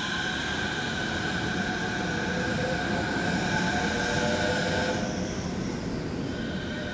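Chiba Urban Monorail Series 0 train pulling out of a station, its Mitsubishi IGBT VVVF inverter whining in several steady tones over the running noise. About five seconds in, the sound drops off as the train moves away.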